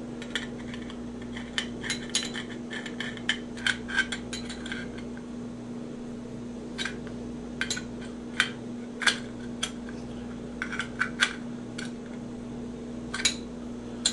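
Small steel open-end wrench clicking and clinking against brass pipe fittings as they are tightened onto a pressure gauge, in irregular metallic ticks that come thickest in the first few seconds. A steady low hum runs underneath.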